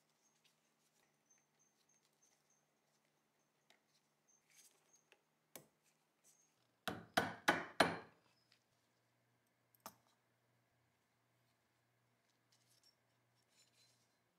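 Four quick sharp knocks in about a second: the Tokarev pistol's hammer-and-sear housing being tapped in a soft-jawed vise during reassembly. Faint clicks of small gun parts being handled come before and after.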